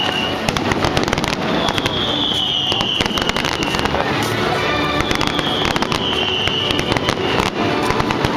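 Fireworks display going off in rapid, continuous crackling and popping bursts. A high whistle falling in pitch recurs every two to three seconds.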